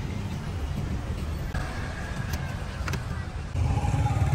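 Outdoor street ambience: a low rumble of road traffic that swells about three and a half seconds in, with faint voices in the background and a single sharp click near the three-second mark.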